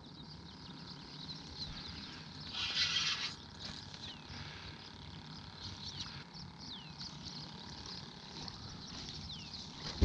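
A hooked fish splashing briefly at the water's surface about three seconds in, against faint open-air quiet with a few short, descending bird calls.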